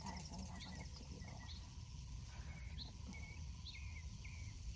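Short bird chirps scattered every half second or so, with faint insect trilling and a low rumble underneath.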